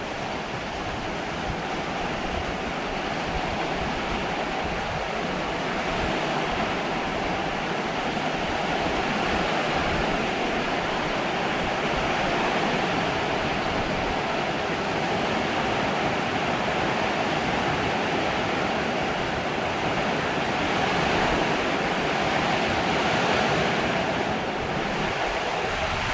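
Steady heavy hurricane rain and wind, a constant rushing hiss that grows a little louder over the first several seconds.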